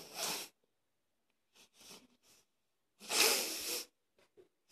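A person breathing close to the microphone: a short breath at the start and a louder, longer breath about three seconds in.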